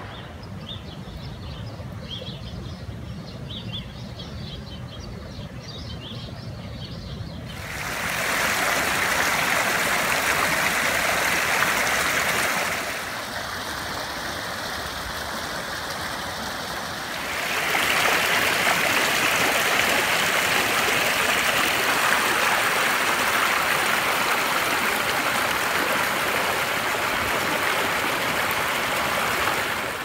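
Rain-fed runoff in a desert wash running over rocks, a steady rushing of water. It gets louder about seven seconds in, eases for a few seconds around the middle, then comes back up.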